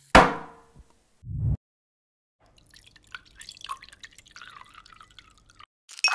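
Tea powder dropped from a spoon into a shaker cup of water with a loud, sharp plop, a dull thump, then a few seconds of thin liquid trickling as aloe concentrate is poured in from a measuring spoon. A sharp clink near the end, as ice goes into the cup.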